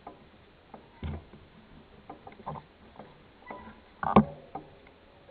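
Mountain bike rattling and knocking over a rough dirt trail: irregular clunks and clicks, with one sharp, loud knock about four seconds in.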